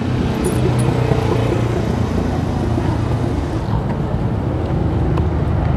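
Steady low rumble with a hiss while riding a bicycle along a city street, with a few faint clicks about half a second in.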